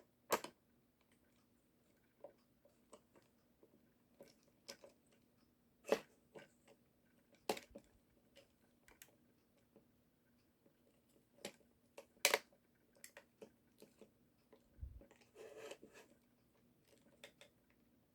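Scattered clicks and knocks of small plastic parts being handled and pressed together as a toy's small electric motor is worked into its seat in the gearbox housing without closing. There are a few sharper snaps, the loudest about 6, 7.5 and 12 seconds in.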